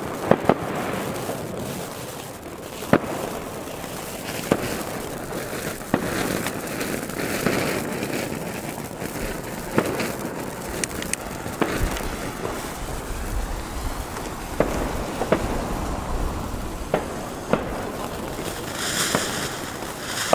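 Ground firework fountains spraying sparks with a steady hiss and crackle, with scattered sharp bangs every second or two.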